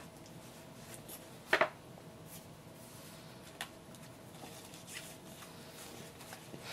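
Small tabletop handling sounds: a metal spoon set down on a plastic plate with a sharp double clack about a second and a half in, then a lighter tap later. A paper napkin rustles near the end.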